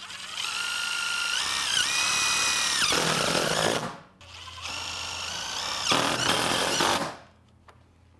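Cordless drill/driver driving pan head screws through a joggle cleat into a steel roof panel, in two runs of about three seconds each. The motor whine steps up in pitch partway through each run.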